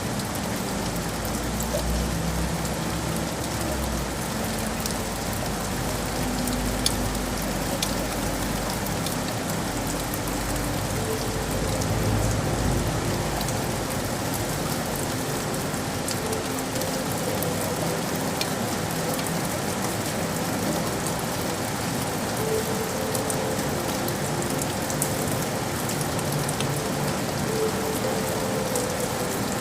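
Steady rain falling on hard city surfaces, with scattered sharp drop ticks. A low rumble underlies it for roughly the first half and then fades.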